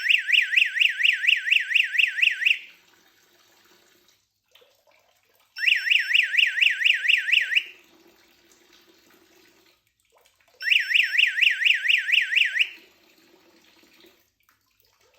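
Digital water flow meter's low-flow alarm sounding: an electronic warbling beep that sweeps up and down about six times a second, in three bursts of two to three seconds each, repeating roughly every five seconds. It signals that the flow rate has dropped below the 1.5 litre-per-minute lower limit.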